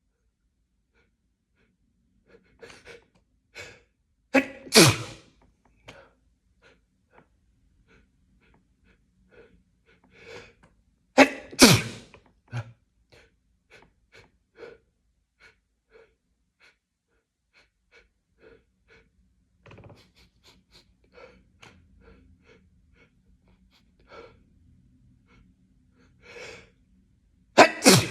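A person in a sneezing fit: three loud sneezes, about five seconds in, about twelve seconds in and at the very end, each led up to by short gasping in-breaths, with faint breaths and sniffs in the gaps.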